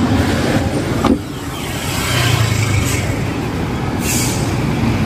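City street traffic: vehicle engines running and passing, a steady low rumble, with a brief hiss about four seconds in.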